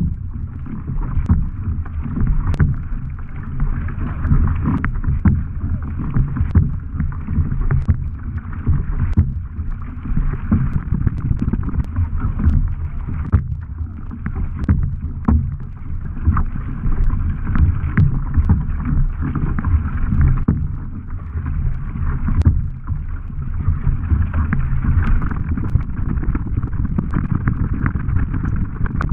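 Wind buffeting the microphone of a bow-mounted camera on a racing surfski, over water rushing and splashing along the hull as the paddler's wing paddle strokes on either side. Scattered sharp ticks run through it, like spray droplets striking the camera.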